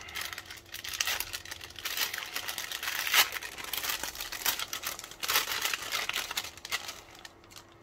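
Small paper component envelope being torn open and crinkled in the hands, a dense crackling rustle that dies away near the end.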